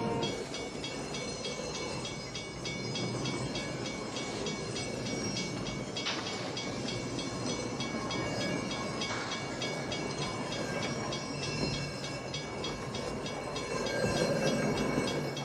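Train running along the rails: a continuous mechanical rumble with fast, regular high-pitched ticking over it.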